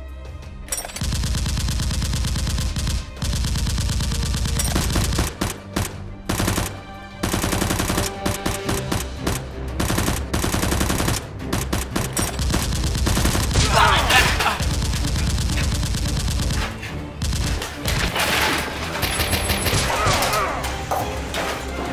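Sound-effect automatic gunfire laid over toy blasters being fired: rapid shots in long bursts with short breaks, starting about a second in.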